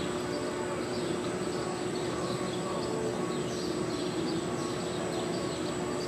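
Steady hum of arena background noise with small birds chirping faintly and repeatedly throughout.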